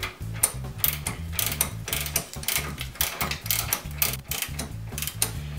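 Ratchet wrench clicking in repeated strokes as a ball joint nut is tightened down. Background music runs underneath.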